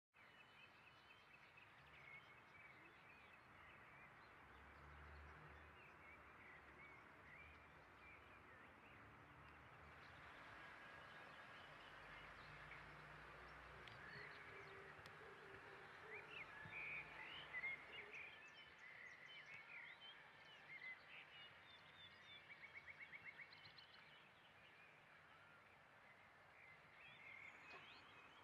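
Faint background ambience of small birds chirping over a low hiss, with a quick run of about ten evenly spaced notes about two-thirds of the way through.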